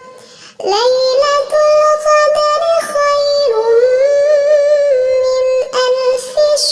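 A high-pitched voice reciting the Quran in a melodic tajweed chant, holding long notes with sliding, ornamented turns in pitch. It pauses briefly for breath about half a second in, then sustains a long, wavering line.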